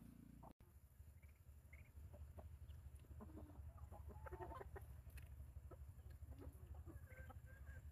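Ducklings peeping faintly inside a bamboo basket, short scattered high calls that come thicker about halfway through and again near the end, over a low steady hum.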